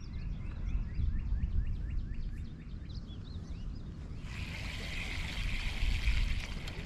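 Outdoor wind rumbling on the microphone. For the first three seconds or so a bird sings a run of short, quick, downward-sliding notes. About four seconds in, a steady high hiss starts and lasts about two and a half seconds.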